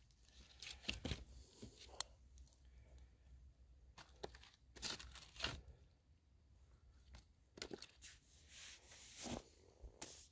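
Wooden branches scraping and knocking against each other and the stones as they are pushed into a smouldering campfire, with scattered short cracks and rustles at irregular moments.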